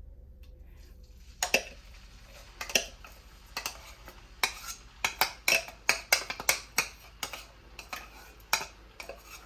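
A metal cooking utensil clinking and knocking against a pan or bowl as ingredients are handled and stirred: sharp separate clicks, sparse at first and coming several a second in the second half.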